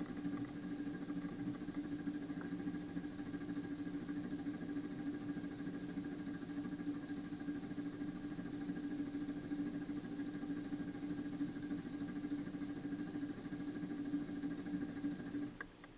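Renault car engine running steadily for about fifteen seconds, then cutting off suddenly near the end.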